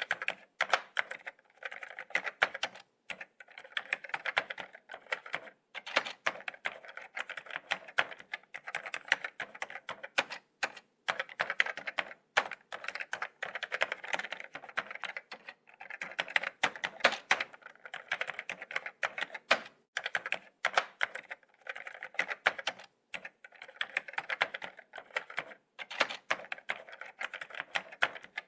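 Laptop keyboard being typed on: quick, irregular key taps in runs, broken by brief pauses.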